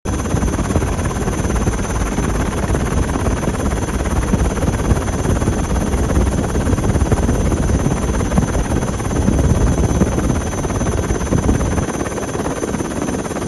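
Steady helicopter rotor and engine noise: a dense low rumble with a thin, steady high whine above it.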